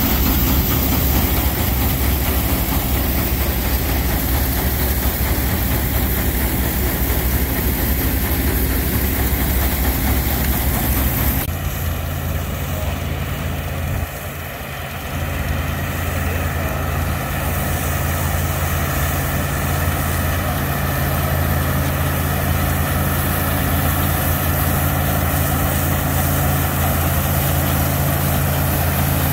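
A belt-driven threshing machine running with a steady low drone. About eleven seconds in it gives way abruptly to an Allis-Chalmers tractor's engine running steadily under load as it pulls a pull-type combine harvesting wheat.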